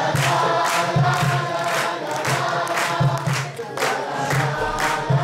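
A group of children singing a scout song together, with hand clapping in rhythm.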